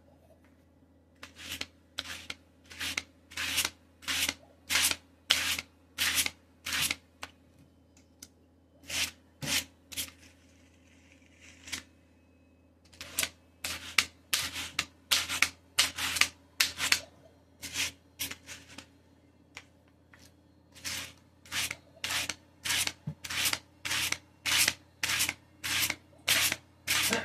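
Two wire-bristled dog brushes drawn against each other to card shed dog fur: a run of short scratchy brushing strokes, about two a second, broken by a couple of brief pauses.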